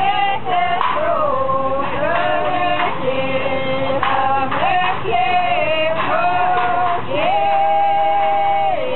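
Voices singing together, a slow melody with long held notes, the longest held near the end.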